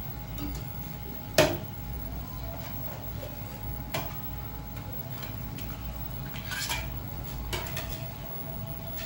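Dishes and metal utensils clinking and clattering, with one sharp clank about a second and a half in and lighter clinks later, over a steady low hum.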